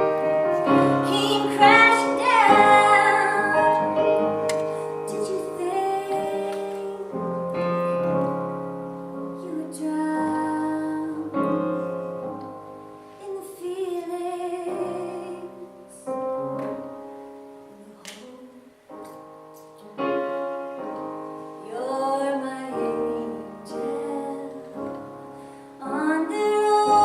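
A woman singing a song with piano accompaniment, holding long notes with vibrato; it grows quieter for a few seconds past the middle and swells again near the end.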